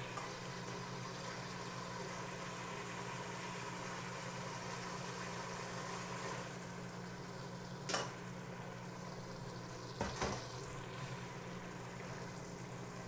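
Minced chicken gizzard in broth sizzling in a stainless steel pot as a steady hiss over a low hum, with short knocks from a spoon against the pot about eight and ten seconds in.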